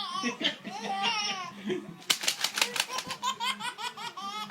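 A baby laughing in repeated high-pitched pulses, with a quick run of sharp clicks about two seconds in.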